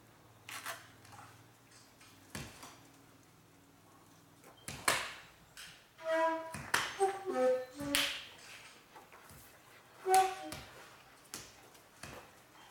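Jinashi nobe shakuhachi improvising: sharp, breathy blown attacks spaced a second or two apart, with a quick run of short notes leaping up and down about halfway through and one loud accented blast near the end.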